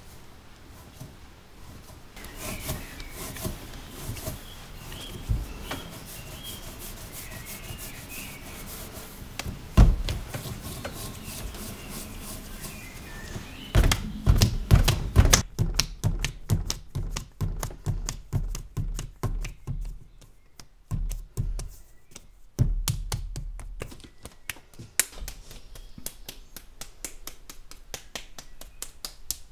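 Clay being wedged and kneaded by hand on a workbench: soft rubbing and pushing with a few dull thumps, then a run of regular slaps about two a second. Near the end the lump is patted and shaped between the palms.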